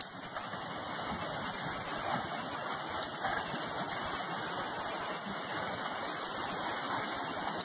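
Steady rushing of a fast-flowing muddy floodwater torrent surging down a street.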